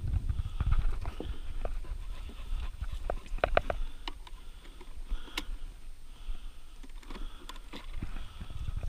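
Riveted metal ferret carry box being opened and handled: a series of sharp clicks and light metallic knocks from its catches and lid, thickest a few seconds in, as a ferret is lifted out. Low rumble of handling and movement in the first second.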